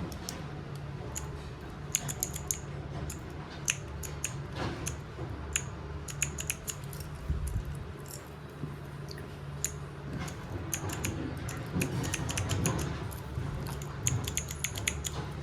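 Irregular clicks and clacks of a Hall effect mechanical keyboard being handled and typed on, with short runs of quick keystrokes.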